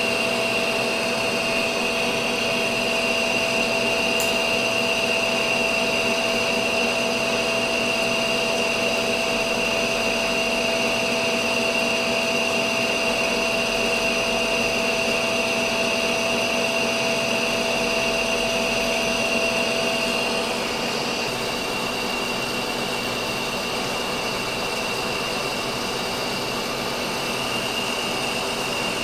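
Monarch engine lathe taking a heavy turning pass on a 1045 steel shaft at 10 thou a revolution: a steady machine hum with a high whine. About twenty seconds in, one of the tones drops out and the sound eases a little.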